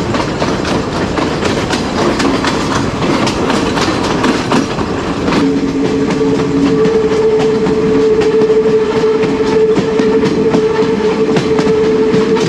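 Passenger train running, its wheels clicking over the rail joints amid a steady rumble and rattle. About five seconds in, a steady single-pitched tone sets in and holds to the end.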